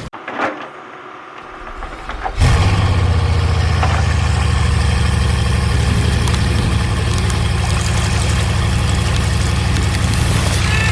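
Steady engine running sound, starting abruptly about two and a half seconds in after a quieter stretch with a few faint clicks, then holding at an even level with a deep hum.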